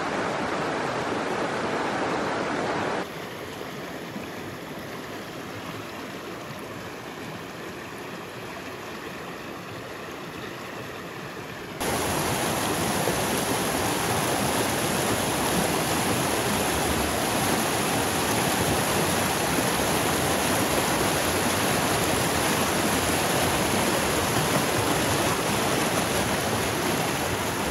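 Rushing water of a shallow, rocky stream: a steady noise that drops quieter about three seconds in and comes back louder about twelve seconds in.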